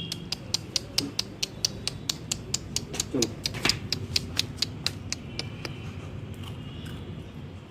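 Puppy crunching puffed rice: a quick run of crisp crunches, about three a second, thinning out after about five seconds.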